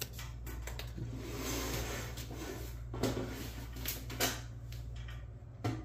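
Handling and moving-about noises: rustling, with a few separate sharp knocks or clicks, over a steady low hum.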